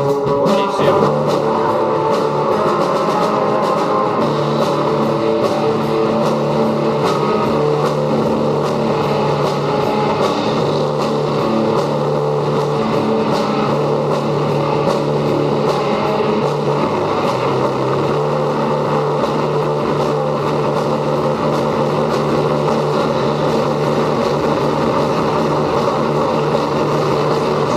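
Loud rock music: distorted guitars and drums playing steadily, over long held low notes that change every couple of seconds.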